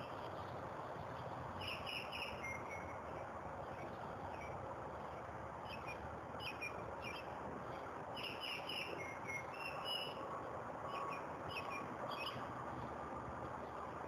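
An unidentified songbird singing short phrases of a few quick, high chirping notes, repeated every second or so over a steady background hiss.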